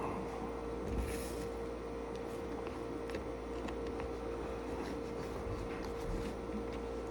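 Steady hum with a constant tone, and faint soft clicks of someone chewing a sandwich.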